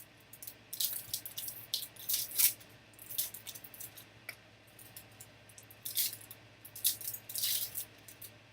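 Trading card packs being handled: short, irregular crinkling and swishing of pack wrappers and cards sliding against each other.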